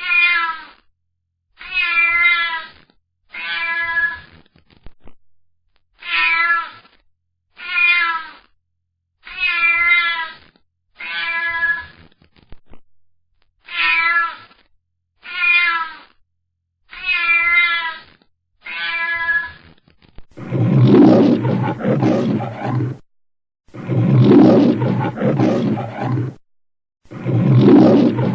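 A domestic cat meowing over and over, about a dozen short meows each under a second long. About two-thirds of the way through, it gives way to three long lion roars with brief pauses between them; the last roar is still going at the end.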